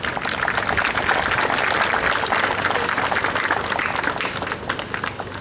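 Crowd applauding: many hands clapping. The clapping starts suddenly, swells for about two seconds, then thins out and fades near the end.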